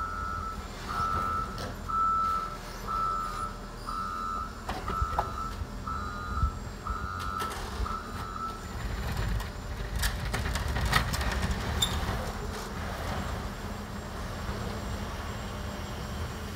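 Tucker Sno-Cat backing up, its reverse alarm beeping about once a second until the beeping stops about eight seconds in, with the engine running low underneath. A few clunks follow later as the blade pushes snow.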